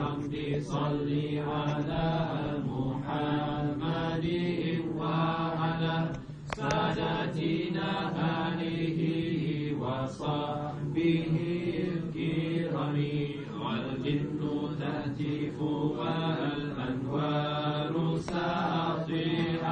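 A group of men chanting a nasheed together, their voices on a steady low pitch with the melody moving above it, briefly dipping for a breath about six seconds in.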